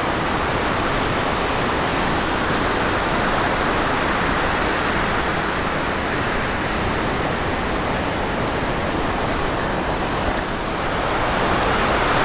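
Steady rushing wash of surf breaking on a sandy beach, an even noise with a low rumble underneath.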